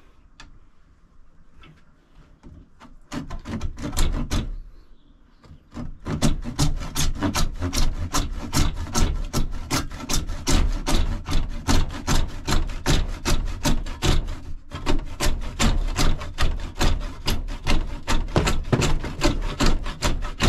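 Hand saw cutting a white PVC pipe fitting clamped in a bench vise, in back-and-forth strokes about two to three a second. A few strokes come about three seconds in, then steady sawing from about six seconds in, with one short break partway through.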